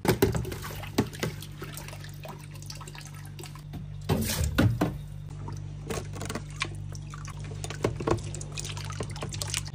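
Water sloshing, splashing and dripping as soaking sea cucumbers are scooped out of a plastic tub with a wire mesh strainer, with the biggest splashes about four seconds in. A steady low hum runs underneath.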